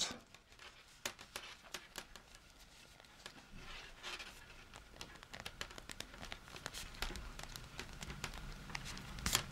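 Faint, scattered clicks and rustles of a circular knitting needle and yarn being handled, as stitches are slid along the needle and its cable for magic loop knitting, with a louder click near the end.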